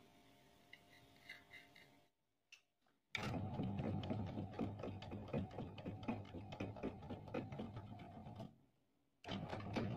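Homemade CNC router machine running with a dense, rapid mechanical rattle. It starts suddenly about three seconds in, cuts out abruptly near the end and starts again. Before it come a few faint clicks of metal parts being handled.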